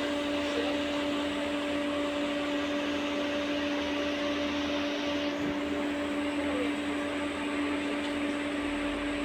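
Steady hum inside an LVS-86 tram car: one constant tone over an even noise, with no change in level.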